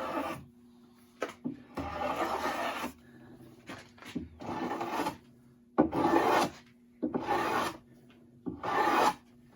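A rough pallet-wood board being worked down by hand: about six scratchy back-and-forth abrading strokes, each under a second long, over a steady low hum.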